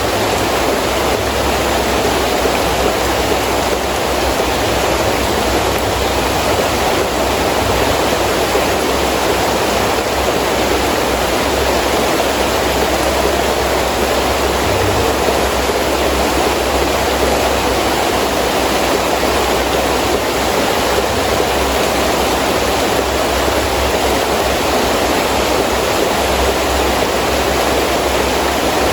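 Heavy rain falling in a steady, dense rush.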